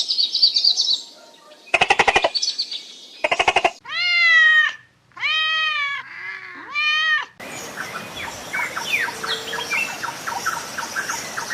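Animal calls in a series of cuts: short rapid pulsed calls, then three drawn-out calls that rise and fall in pitch, then many short bird chirps over a steady hiss.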